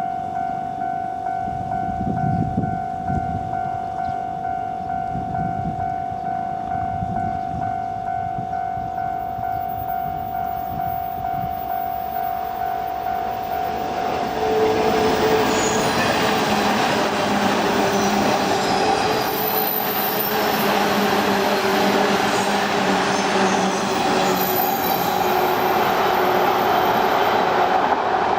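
Japanese level-crossing warning bell ringing in a steady repeating pattern. About halfway through, an electric train passes over the crossing: a loud rush of wheels on rail and running noise with a steady low hum that drowns out the bell.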